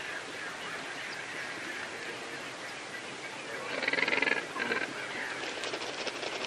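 Water splashing and churning as great white pelicans thrash and feed in a pond. A short bird call sounds about four seconds in, with a shorter one just after and another near the end.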